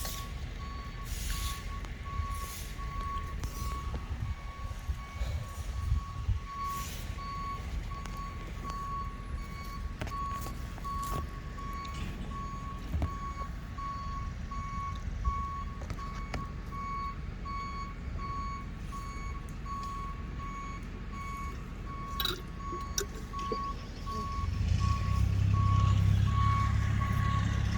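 Truck reversing alarm beeping steadily at an even rate while the truck backs up, over the low running of its diesel engine. The engine grows louder near the end.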